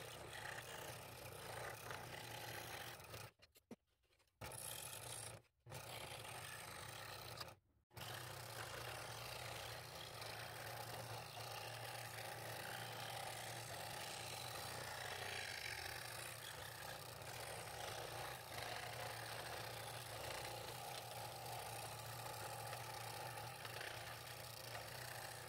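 Scroll saw running and cutting through thin wood: a steady motor hum under the rasp of the fine blade. The sound cuts out briefly three times in the first eight seconds, then runs on unbroken.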